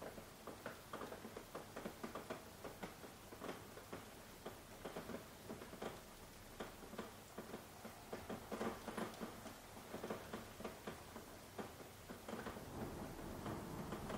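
Soft rain, separate drops pattering and tapping at an irregular pace, growing denser and a little louder near the end.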